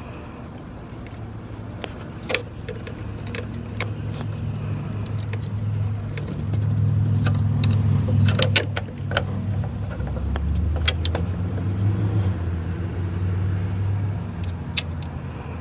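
Low, steady hum of a motor vehicle's engine running, dropping in pitch about two-thirds of the way through, with sharp metallic clinks of hand tools scattered over it as a nut is fitted on the A/C line's stud.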